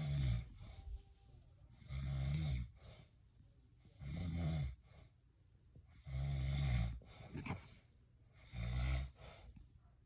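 Snoring: five deep, rasping snores, each under a second long and about two seconds apart, with quiet breathing between them.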